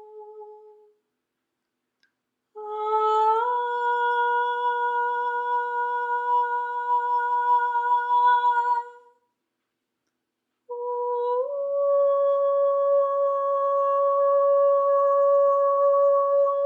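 A voice humming long held notes: the first held about six seconds with a small upward slide in pitch near its start, then, after a short silence, a second, slightly higher note that slides up and holds on.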